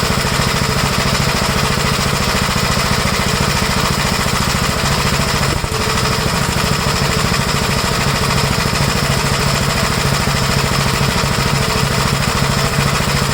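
1956 Gravely Model L walk-behind tractor's single-cylinder engine running steadily, with a fast, even firing beat.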